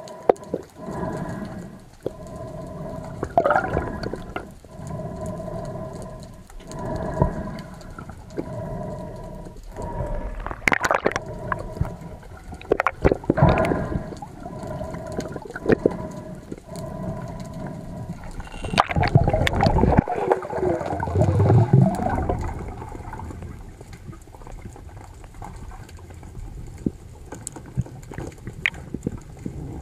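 Water sloshing and gurgling around a diver's camera, with a faint tone pulsing about once a second and a few sharp knocks.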